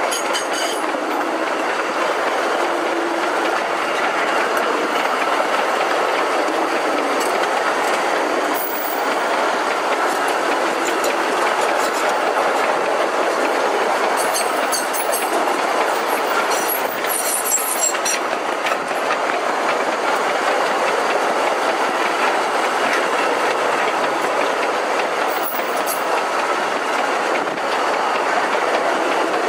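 Sugar cane train rolling along its narrow-gauge track: a steady rattle of wheels and wagons, with a few brief high-pitched squeals.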